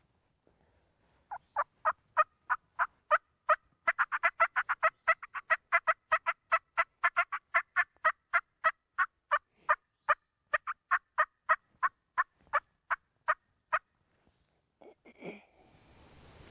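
A long run of turkey yelping: short, evenly spaced notes about three a second, quickening to about six a second in the middle, stopping after about fourteen seconds. A brief rustle follows near the end.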